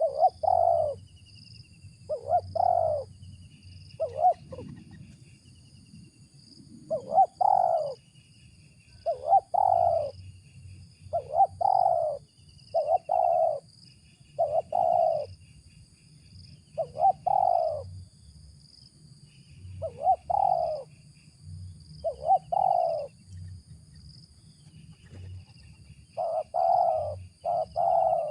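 Spotted dove (tekukur) cooing over and over: short coos, often in pairs, about every one to two seconds, with a quicker string of coos near the end.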